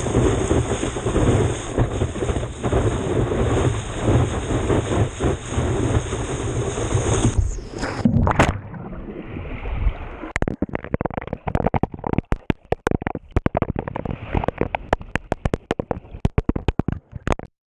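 Waterproof action camera in breaking lake surf: a loud rush of wind and churning water on the housing with a heavy low rumble. About eight seconds in it goes under, and the sound turns to a muffled underwater hiss filled with rapid, irregular clicks and knocks against the housing. The sound cuts off abruptly near the end.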